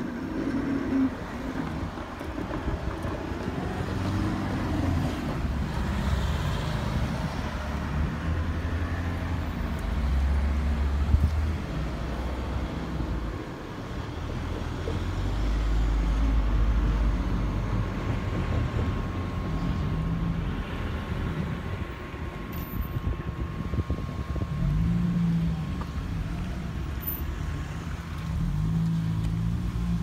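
Low, uneven outdoor vehicle rumble that swells and fades, with a faint steady whine in the middle stretch.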